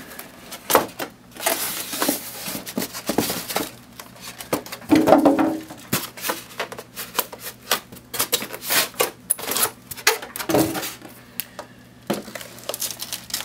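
Styrofoam packing pieces being pulled off a boxed monitor and its plastic wrapping handled: irregular rustling, crinkling and scraping of polystyrene and plastic, with many sharp clicks.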